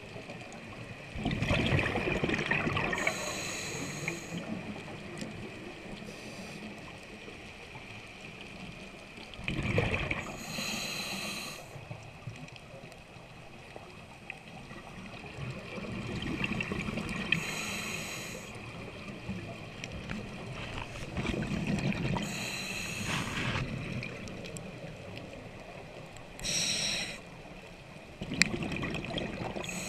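A scuba diver breathing through a regulator, heard underwater: bursts of exhaled bubbles followed by the hiss of an inhaled breath, repeating every five to seven seconds.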